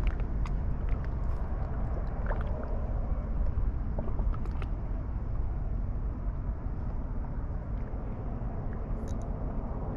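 Steady low rumble of wind buffeting the microphone at the water's edge, with a few faint scattered clicks.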